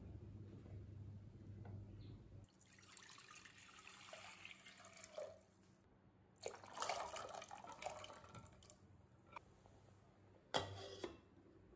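Water splashing and pouring into a saucepan in two stretches, then one sharp clink of a glass lid against the pot near the end, the loudest sound.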